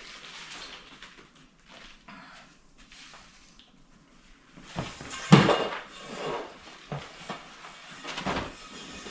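Handling clatter and knocks of a curtain rod as a blackout curtain is slid onto it, with a few sharp knocks in the second half, the loudest about five seconds in.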